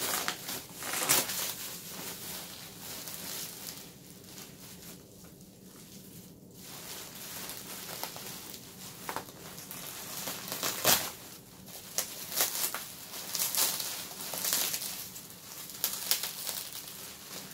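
Plastic packaging wrap being pulled and handled: irregular crinkling and rustling with sharp crackles, easing off for a few seconds about four seconds in.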